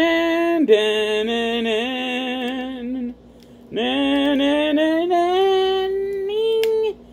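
A man singing a wordless tune in a high voice: long held notes that slide up and down, in two phrases with a short break a little after three seconds in.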